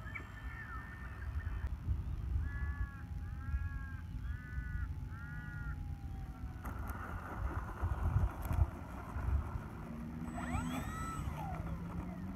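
Wind rumbling on the microphone in an open field, with a bird's call repeated four times about two seconds in, more bird calls near the end, and a few thumps about eight seconds in.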